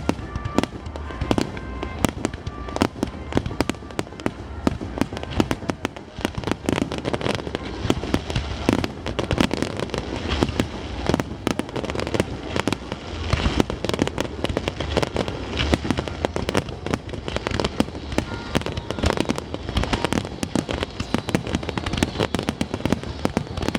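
Fireworks display: a dense, continuous barrage of bangs and crackling bursts, many every second.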